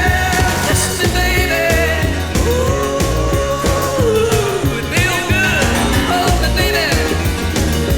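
Recorded 1950s rock and roll playing with a steady driving beat, in an instrumental stretch between sung verses.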